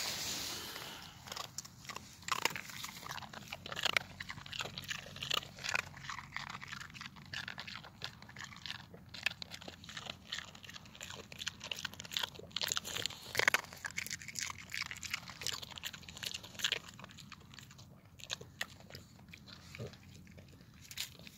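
A dog biting and chewing chunks of ice, with many quick, irregular crunches.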